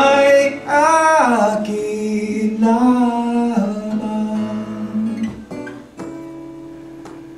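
Live band playing a song: a man sings a sliding vocal line over acoustic guitar strumming and held keyboard chords. The voice drops out a little over halfway through, leaving the sustained keyboard chords and a few guitar strums.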